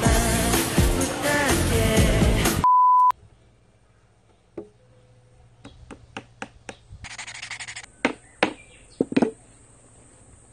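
Background music that cuts off about two and a half seconds in with a short, steady, high beep. Then comes a run of irregular hammer taps on a small piece of wood.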